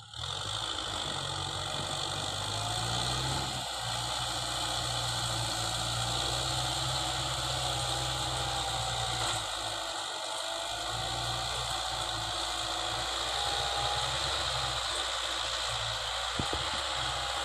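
Kubota M6040 tractor's four-cylinder diesel engine running steadily under load as its rear-mounted rotary tiller churns the soil, with a faint wavering whine over the engine note.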